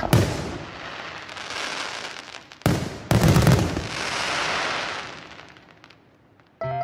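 Fireworks bursting: one bang at the start and two more close together about three seconds in, each followed by a hiss that slowly fades away.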